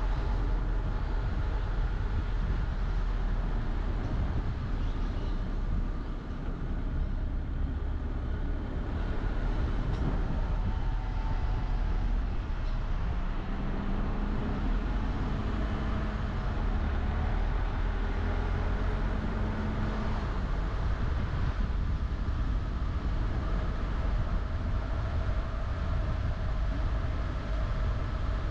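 Steady low rumble of a car driving: road and engine noise. About halfway through a hum rises in pitch and holds steady for several seconds, then stops.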